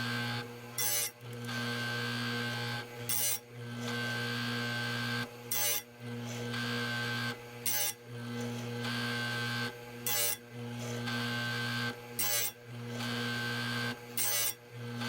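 Electric chainsaw-chain grinder motor humming steadily. Its wheel touches the cutters of a Stihl MS 362 chain in short harsh grinding bursts about every two seconds, about seven times, as the chain is sharpened tooth by tooth.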